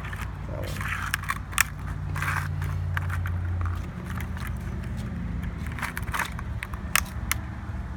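Sharp plastic clicks and small cracks of keycaps being pried and knocked off a MacBook keyboard, several of them spaced irregularly, over a low steady hum that eases about halfway through.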